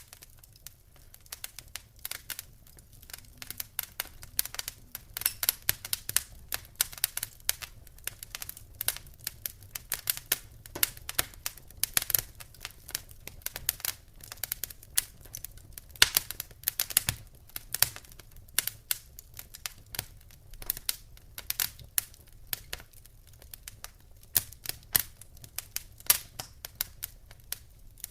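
Wood fire crackling: a dense, irregular run of sharp pops and snaps, some much louder than others.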